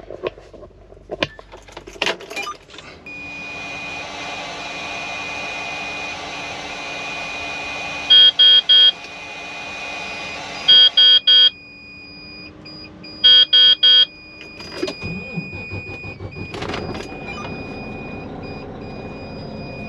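Mack truck being started: key clicks, then with the ignition on a steady hiss and high tone, and the dash warning chime sounding three groups of four loud beeps. About fifteen seconds in, the diesel engine cranks and catches on the first try and keeps running, though the truck has had a long-start issue.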